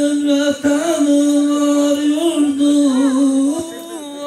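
A man singing unaccompanied into a handheld microphone, holding long, steady, drawn-out notes with small steps in pitch, and a brief pause near the end.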